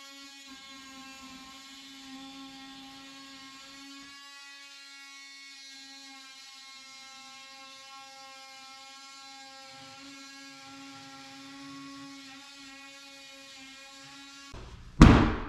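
Cordless oscillating multi-tool running with a steady buzzing whine as its blade cuts through drywall. A few loud thumps come about a second before the end.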